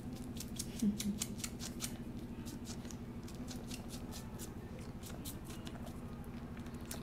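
Two-month-old kitten suckling on its owner's sweater: a quick run of small wet sucking clicks, several a second, over a steady low purr.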